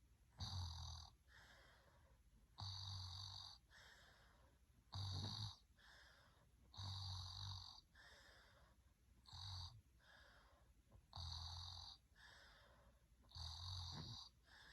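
A person snoring in a steady rhythm: seven snores about two seconds apart, each with a low rumble and followed by a softer breath out.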